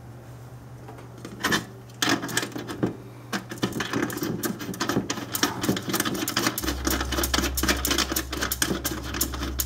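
Hands rummaging among cables and small hard parts inside an open metal ammo-can radio go box, making rapid, irregular clicks and rattles from about two seconds in. A steady low hum runs underneath and gets louder about two-thirds of the way through.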